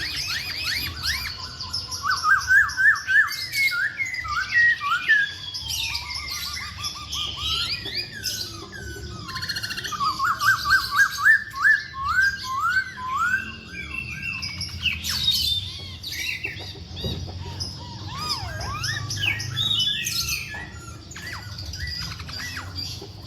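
A Poksay Hongkong (masked laughingthrush) in full song: runs of quick, repeated rising whistled notes, loudest in a spell a couple of seconds in and again about ten seconds in, with varied shorter calls between.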